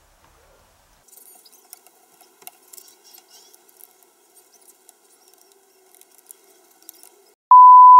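Faint scratching and small clicks of a plastic pry tool working along the seam of a Dell XPS 15 9510's aluminium bottom cover. Near the end a loud, steady electronic bleep tone starts and drowns everything else.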